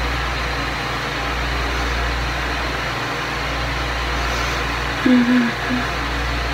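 Steady low rumble with a hiss over it, a constant background noise; a brief hummed voice sound about five seconds in.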